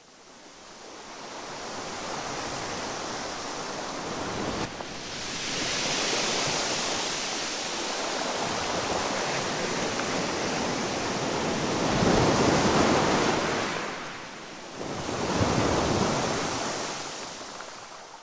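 Ocean surf washing onto a sandy beach, rising and falling in slow swells, the loudest two near the end. It fades in at the start and fades out at the end.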